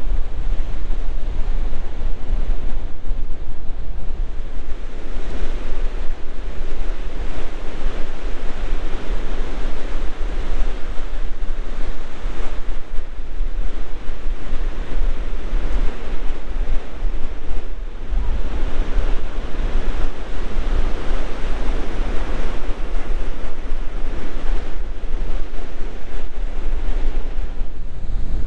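Waves breaking on a shore in strong wind, the surf swelling and fading every few seconds, with a heavy low rumble of wind buffeting the microphone throughout.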